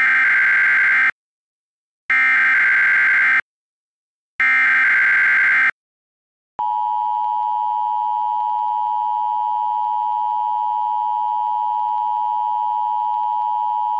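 Emergency Alert System alert signal: three bursts of the SAME digital header, each about a second long with about a second's gap between them, then a steady attention tone starting about six and a half seconds in. Together they mark the start of an emergency alert, ahead of the spoken warning.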